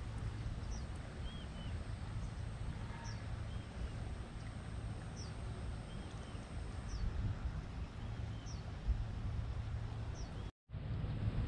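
Riverside ambience: a steady low rumble, with a small bird repeating a short high chirp every couple of seconds and a faint high steady tone that stops partway through. The sound drops out for a moment near the end.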